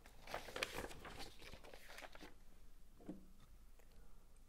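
Faint rustling and handling noise close to a clip-on lapel microphone as a drinking glass is lifted, then a quiet sip of water.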